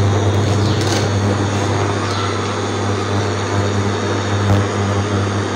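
Induction cooktop running: a steady electrical hum with fan noise. About a second in, a light knock as a block of paraffin wax lands in the steel pan.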